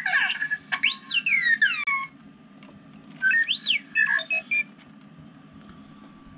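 R2-D2 beeps and whistles played from a small speaker in a LEGO light-and-sound kit. There are two bursts of chirps: the first has quick falling whistles in about the first two seconds, and the second, a little after three seconds, has beeps and one rising-then-falling whistle.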